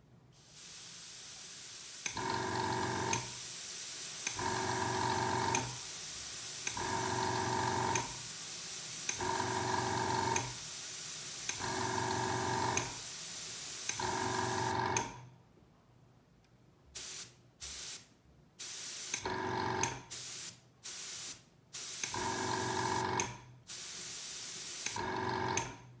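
Iwata Power Jet Lite airbrush compressor running and feeding an airbrush that blows a steady hiss of air, under a hum that swells and dips about every two and a half seconds. About fifteen seconds in, the air stops suddenly. Then come short bursts of hiss and hum, one after another, as the airbrush trigger is pressed and released.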